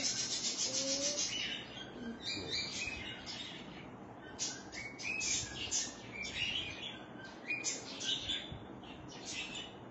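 Small birds chirping: clusters of short, high calls repeating again and again over a steady background hiss.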